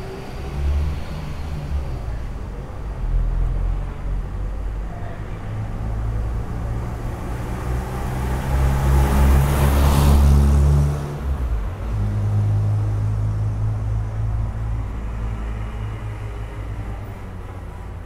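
Night street ambience: a steady low traffic rumble, with a car passing close by about halfway through, its noise swelling to a peak and then dropping away.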